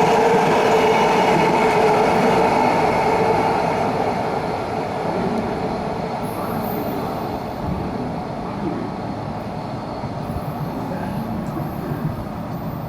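Container freight train rolling past on the rails, a steady rumble with a held ringing tone from the wheels, fading a few seconds in as the train draws away.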